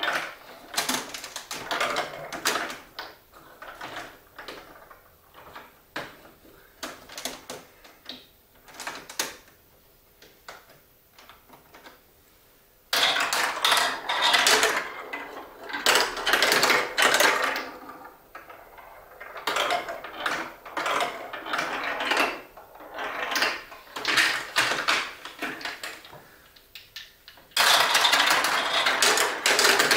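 Irregular clicking and clattering from a marble run built of Duplo blocks. The clicks are scattered and sparse for the first half, with louder bursts of dense clatter about halfway through, again a few seconds later, and near the end.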